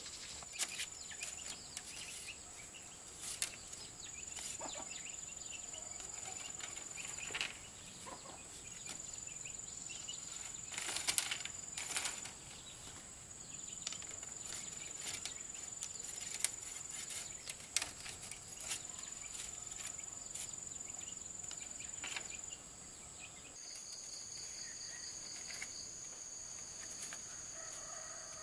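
Bamboo strips clicking and clattering against each other as they are handled and fitted into a lattice fence, a scatter of short sharp knocks, the loudest about eleven seconds in. Underneath, a steady high insect drone comes and goes in stretches of a few seconds, and changes pitch in the last few seconds.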